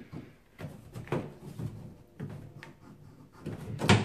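Chrome faceplate of a Moen tub valve being worked off the wall by hand: a series of scrapes and knocks against the wall surround, with the loudest clunk near the end as the plate comes away.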